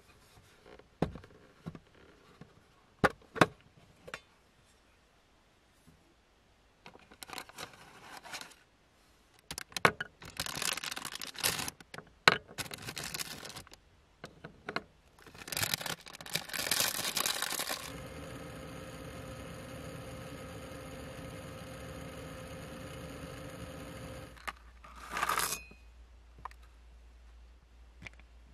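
Tabletop handling of a snack bag and ceramic cups: a few sharp taps and clicks, then crinkling and rustling of the packaging. After that comes a steady hum for about six seconds that cuts off suddenly, then one short rustle.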